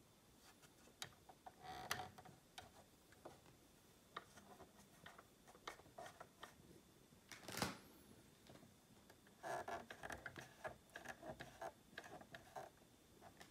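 Faint handling noises: scattered small clicks and taps from a 1:18 diecast model car being moved about by hand, with one louder click about halfway through and a run of quick light ticks near the end.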